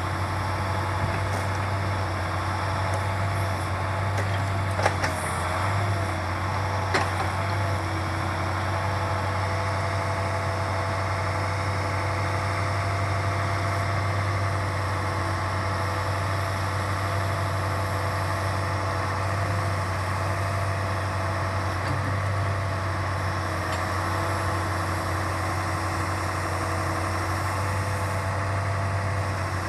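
Truck engine running steadily at a constant pitch, powering the hydraulic pump of an OMTL 70-02 timber-loading crane, with a steady whine above the low hum. Two sharp knocks sound about five and seven seconds in.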